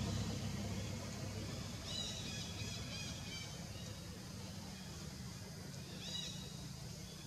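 A steady low hum, with short high-pitched chirping calls from an animal in a cluster about two seconds in and again near six seconds.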